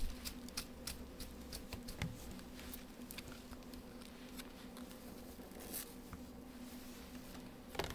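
Faint rustling and scattered small clicks of hands handling a short human/synthetic blend wig and stretching a wig cap on, over a steady low hum.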